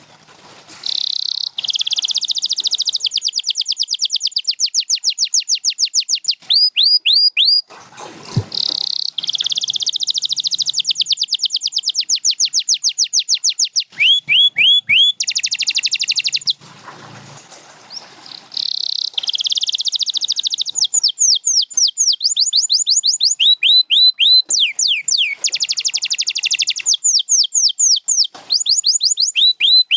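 Domestic canary singing: long, very rapid trills of repeated notes alternating with runs of quick downward-sweeping whistles, with brief pauses about 8 and 17 seconds in.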